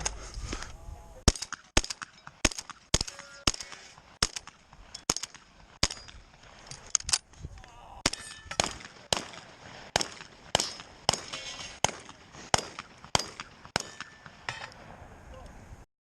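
Rapid shotgun fire from a competition stage, about two shots a second for the whole run, with steel targets faintly ringing after some hits. Two shooters are firing side by side in a shoot-off.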